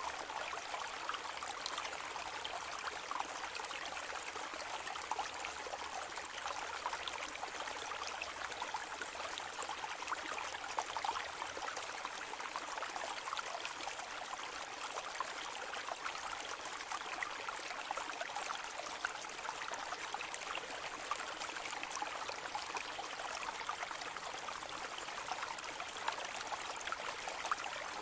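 Steady rushing noise with fine crackling all through, like a running stream.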